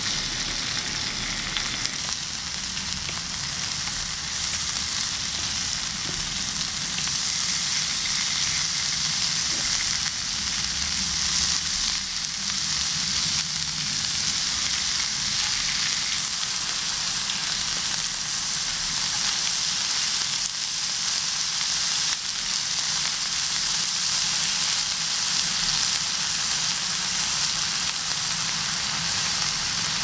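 Beef-and-green-onion rolls sizzling as they fry on a hot griddle pan, a steady hiss that grows a little louder as more rolls go on, with a few light clicks from the tongs.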